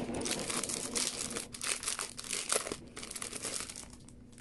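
Clear plastic wrap on a CD album case crinkling as it is pulled off by hand, a dense crackling that thins out and quietens after about three seconds.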